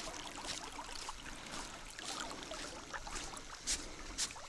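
River water lapping and trickling against the side of an inflatable boat, with small irregular splashes, a few sharper ones near the end.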